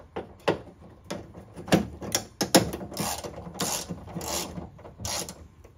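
Hand ratchet turning a 10 mm socket to back out a bolt: a run of sharp pawl clicks, then four longer strokes of rapid clicking as the handle is swung back and forth.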